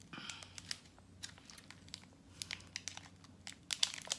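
A chocolate bar's wrapper crinkling and crackling as it is pulled and torn open with fingers and teeth. There is an uneven run of sharp crackles, loudest just before the end.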